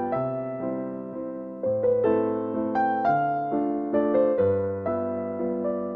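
Background piano music: a gentle melody of struck notes over slow bass notes.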